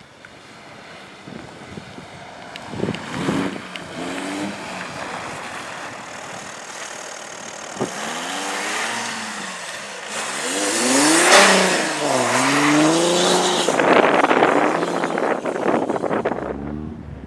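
Car engine being driven hard on a race track, revving up and down over and over as it comes closer, loudest about two-thirds of the way through, then fading near the end. Two sharp knocks are heard a few seconds apart.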